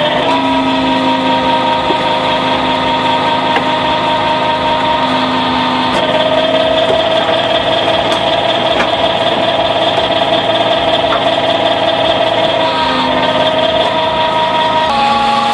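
Log splitter's motor and hydraulic drive running steadily. Its tone changes about six seconds in and shifts again near the end.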